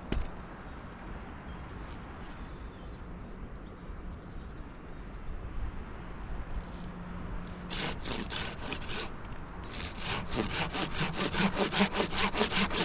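Hand saw cutting wood: a few strokes about eight seconds in, then fast, even back-and-forth sawing that grows louder. Before it, a steady low hum and a few faint high chirps.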